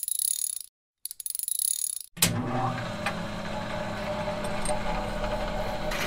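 Intro title sound effects: two short bursts of rapid mechanical clicking, like a ratchet or typewriter, then a sudden, steady low drone that starts about two seconds in.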